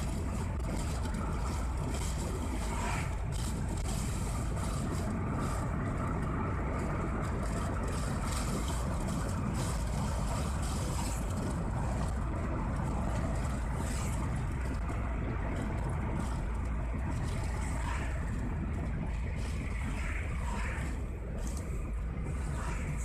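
Steady road noise heard inside a moving car: engine and tyre rumble, strongest in the deep bass, with no change in speed.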